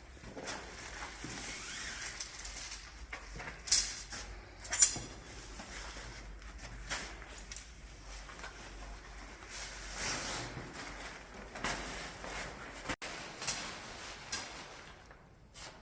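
A tent being pitched: nylon fabric and parts rustling and being handled, with scattered light clicks and two sharp clacks about four and five seconds in.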